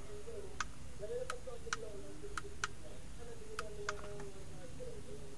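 Sharp clicks of a hair straightener's control-panel push buttons being pressed, about seven at uneven intervals, as it is switched on and its heat setting chosen.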